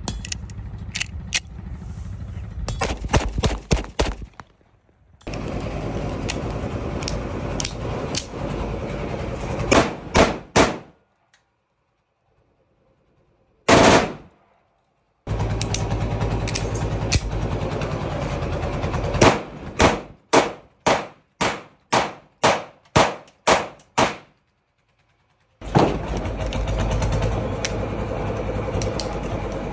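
Semi-automatic pistols firing in a string of short clips: several shots in the first few seconds, three quick shots near ten seconds, a single shot around fourteen seconds, and a run of about nine shots at roughly two a second later on, over a steady background noise.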